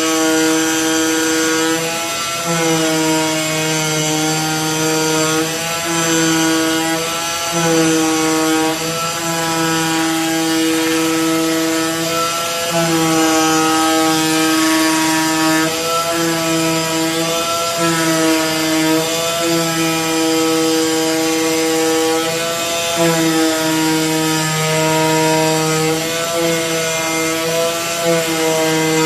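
AOKE DCZ70 CNC flatbed cutter running, a steady pitched buzz over a hiss as it cuts graphite gasket sheet. The buzz wavers slightly and breaks off briefly several times.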